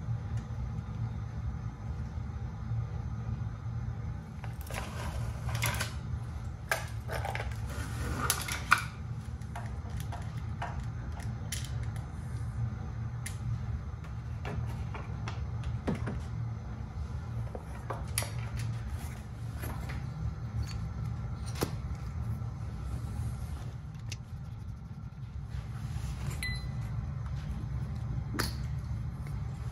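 Scattered small clicks and light metallic rattles from hand work on a motorcycle's battery terminals and wiring connectors, busiest in the first third. A steady low hum sits underneath.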